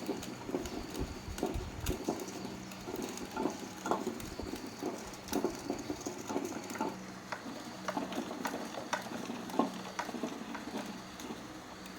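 Irregular light taps, clicks and scrapes of hand tools working on metal parts of an electric pump motor, over a steady low hum.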